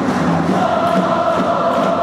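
Large crowd of football supporters singing a chant together in unison, their voices settling onto a held note about half a second in.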